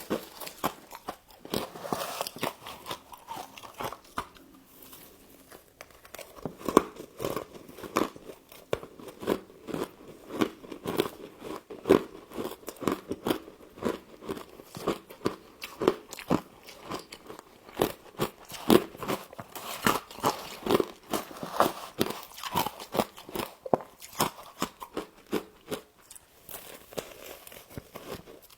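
Close-up crunching and chewing of humidifier frost: dense, irregular crisp crunches several times a second, with a short quieter pause partway through.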